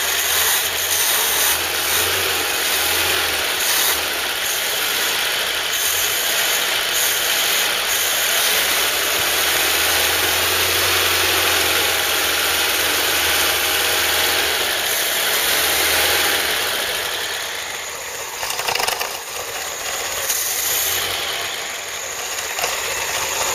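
Freshly rebuilt 2.0-litre Ford Pinto four-cylinder engine running on its automatic choke and being revved. Near the end the revs fall back as the throttle blip disengages the auto choke's fast idle.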